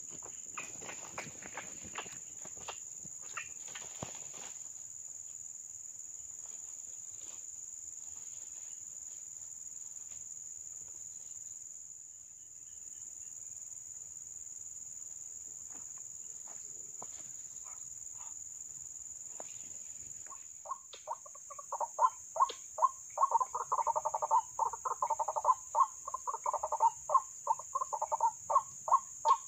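A steady high cricket drone, with rustling in dry leaves in the first few seconds. About two-thirds of the way in, a white-breasted waterhen starts its loud call, a rapid run of repeated two-pitched notes at about three to four a second that goes on to the end.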